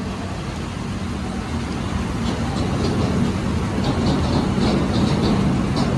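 Freight train of covered box wagons passing close by, with a steady rumble of steel wheels on rail. From about two seconds in there are short, high-pitched squeaks that repeat irregularly.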